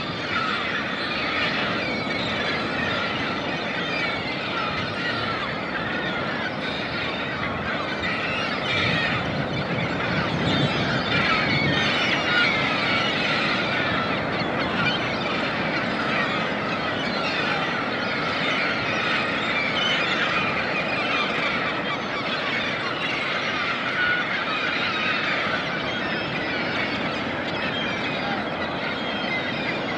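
Ocean surf washing steadily on a beach, under the constant calling of a large flock of seabirds; the surf swells a little about ten seconds in.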